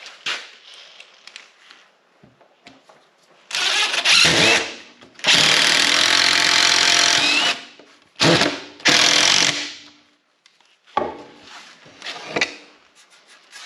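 Cordless power driver driving long screws into wood, running in bursts: a short run about three and a half seconds in, a longer run of about two seconds, then two quick bursts. Light knocks of handling wood and tools before and after.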